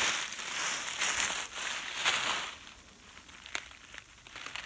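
Footsteps crunching through dry fallen leaves for the first two and a half seconds or so. Then it goes much quieter, with a couple of sharp clicks.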